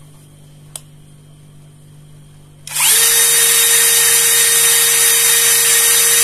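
Kamolee 10mm brushless cordless drill, the standard unmodified unit, starting up about three seconds in and spinning freely with no load at about 1,450 rpm. It gives a steady whine, its pitch rising quickly at start-up and then holding.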